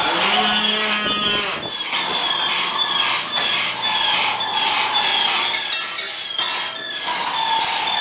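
Sound effects from a dark ride's shooting game: a high electronic beep repeating about twice a second, mixed with other pitched effects and a low drawn-out tone near the start.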